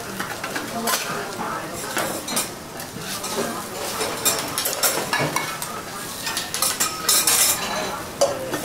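Metal spoon and spatulas scraping and clinking on a hot steel teppan griddle in quick, irregular strokes, as a cabbage batter pancake is spread and shaped, with a light sizzle underneath.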